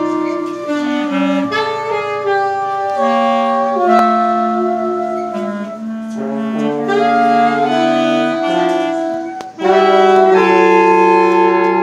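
Saxophone ensemble playing, several saxophones holding long notes together in harmony. The sound dips briefly about nine and a half seconds in, then the group comes back in louder.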